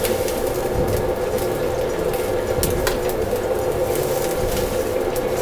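Hot water poured from a ladle, splashing over a bone-in chicken thigh in a perforated wok strainer and draining into the wok below. This scalds the skin side to tighten it for crisp frying. A steady background hum runs underneath, with a few light metal clinks.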